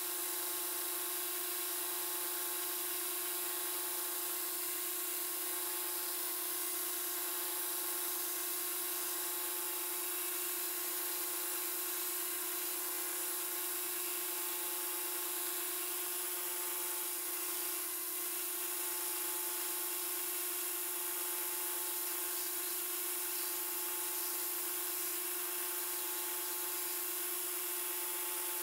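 Belt grinder running steadily, its abrasive belt sanding the edge of a thin wooden knife template: a constant motor hum under a high sanding hiss.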